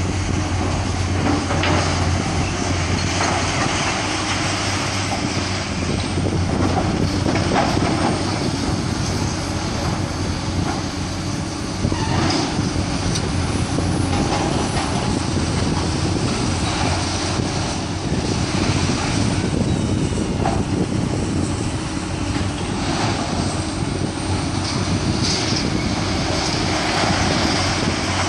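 Caterpillar hydraulic excavator's diesel engine running steadily under load as it demolishes a building, with scattered crashes and clatter of falling concrete and metal debris.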